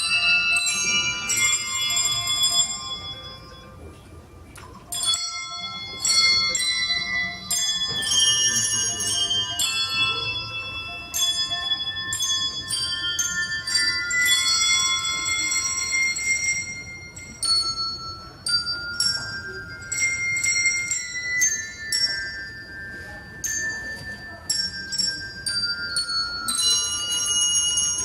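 Handbells played as music: a melody of struck bell notes, often several at once in chords, each ringing on after the strike. A chord is held and rung on for a few seconds about halfway through.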